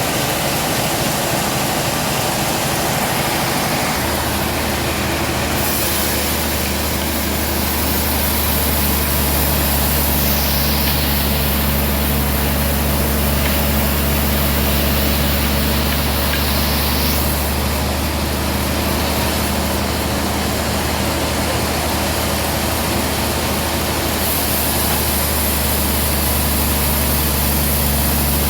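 Band sawmill running with a steady low hum, a loud hiss over it that rises and falls several times as the blade works.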